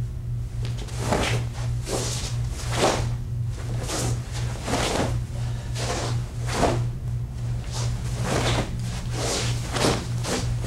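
Movement sounds of a karate kata performed solo: the gi swishes and bare feet shift on carpet with each step, block and punch, roughly one to two short swishes a second. A steady low hum runs underneath.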